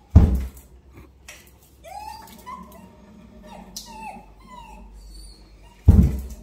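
Dogs whining and yipping in short rising and falling cries. Two loud bangs, louder than the dogs, come just after the start and near the end.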